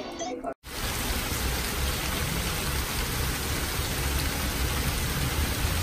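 Steady hiss of rainfall that starts abruptly about half a second in, with a low rumble underneath.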